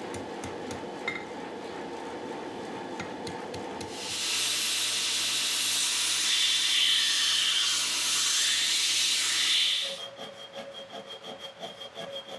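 Light hammer taps on a hot wrought-iron knife guard at the anvil over a steady low rush. About four seconds in, a belt grinder grinds the guard with a loud hiss over its motor hum for about six seconds, then stops suddenly. It gives way to rhythmic rasping strokes of a file on the guard held in a vise.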